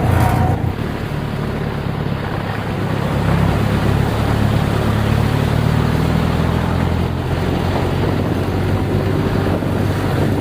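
Off-road 4x4 engine running steadily under a hiss of wind and road noise on the microphone.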